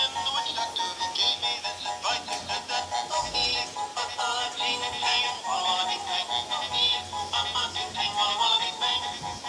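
Animated plush puppy toy playing a song from its built-in speaker: a synthesized singing voice over a backing tune.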